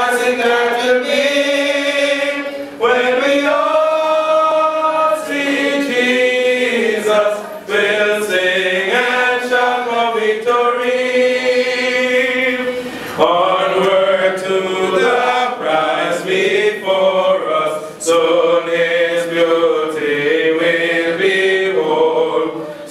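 A hymn sung in long, slow phrases, a man singing into a microphone with other voices joining in.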